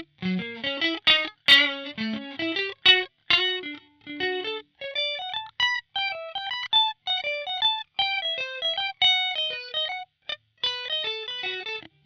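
Swing P-2S electric guitar played through a Line 6 POD HD500 on a clean tone. It plays fast single-note lead runs in short, separate notes, with brief breaks between phrases. The lines move higher up about five seconds in.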